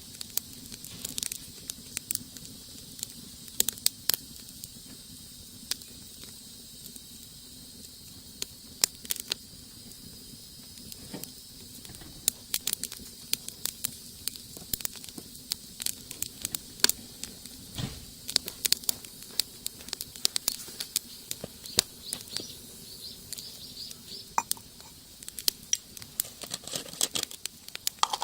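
Wood burning in a rocket stove, crackling with frequent irregular sharp pops.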